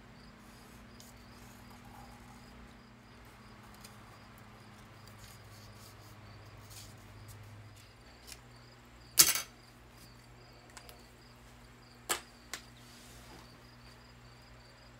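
A few sharp clinks of cut stained-glass pieces being handled and set down on the panel and bench: the loudest about nine seconds in, two more about three seconds later. Under them, a faint low hum and a faint, regular high chirping.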